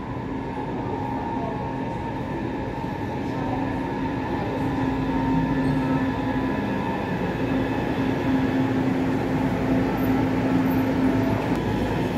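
A train running along the track, with a steady hum that sets in a few seconds in and the sound growing slowly louder as it comes closer.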